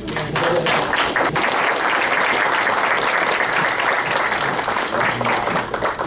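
An audience applauding after a talk: steady, sustained clapping from many hands, with a few faint voices under it.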